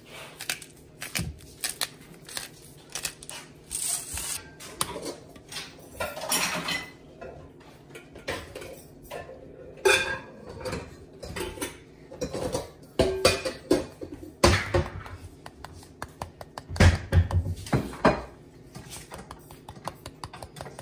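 Irregular clicks, knocks and short clatters of kitchen utensils and a plastic food-processor bowl being handled, with no motor running.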